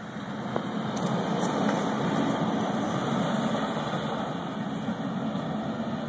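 A sport utility vehicle drives past close by, its engine and tyre noise swelling about a second in, holding, then fading as it moves off.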